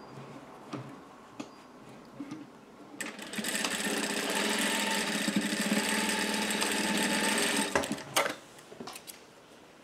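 Industrial sewing machine stitching a seam in one steady run of about five seconds, starting about three seconds in and stopping with a few sharp clicks. Light clicks of the fabric being handled come before it.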